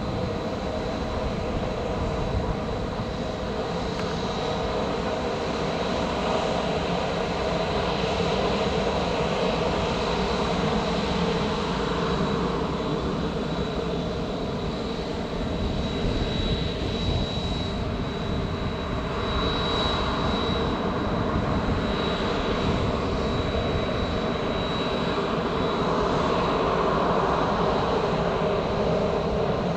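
Jet engines of a Boeing 737 running at low taxi thrust: a steady rushing hum with a thin high-pitched whine that grows stronger midway and swells a little toward the end.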